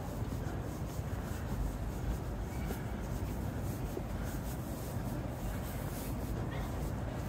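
Steady low city street rumble with faint, repeated scuffing sounds over it.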